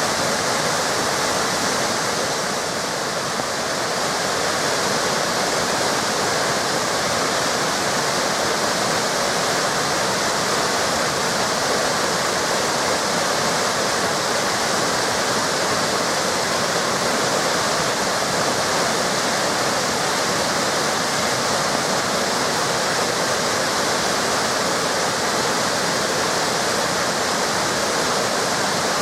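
Waterfalls pouring: a steady, even rush of falling water.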